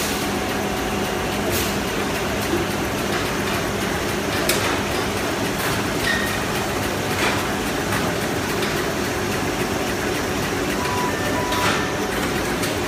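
High-speed T-shirt bag-making machines running: a dense, steady mechanical din with a low hum and an occasional sharp knock.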